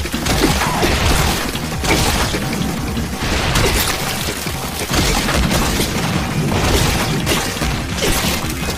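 Fight sound effects for sword slashes cutting through flesh: a string of loud, sweeping hits and crashes with splattering, one every second or so.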